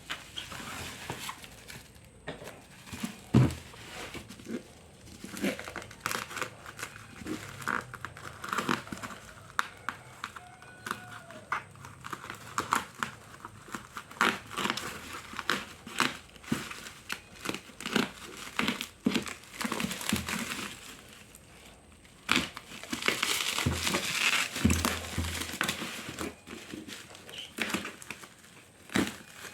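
A delivery package being opened by hand: plastic and paper wrapping crinkling and tearing, with scattered taps and knocks, one louder knock early on, and a denser run of crinkling in the last quarter.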